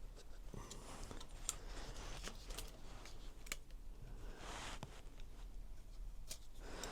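Scattered light clicks and taps of hand tools on metal, with a brief scraping rustle about four and a half seconds in, as the valve clearance adjusters on a Honda CB250RS engine are worked on.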